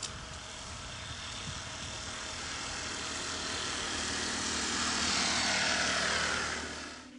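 Passing engine noise, a broad rush that grows steadily louder for about six seconds, falls slightly in pitch near its peak, then cuts off abruptly near the end.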